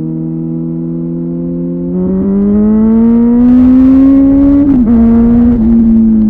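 Kawasaki ZZR 1400 inline-four with a Delkevic exhaust running steadily, then pulling hard with its pitch rising under acceleration about two seconds in. Near the end a quick break and drop in pitch marks an upshift, after which it holds a steady note.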